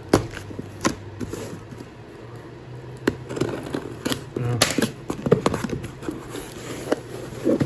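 A shipping box and its packing being handled and pulled at while being opened: scattered knocks, taps and rustles.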